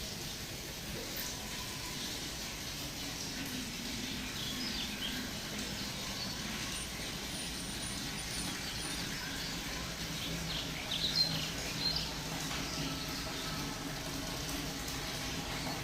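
Outdoor ambience of small birds chirping in short scattered calls over a steady low rumble, with a brief cluster of louder chirps about eleven seconds in.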